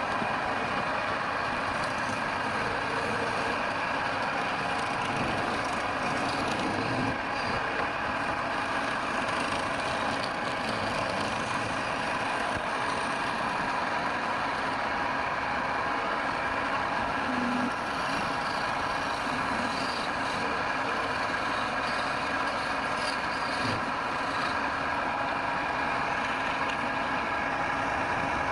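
Wood lathe running with a steady, even mechanical hum that has several constant tones in it.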